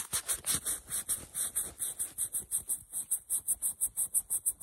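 Rapid, even scraping or brushing strokes, about four to five a second, repeated steadily.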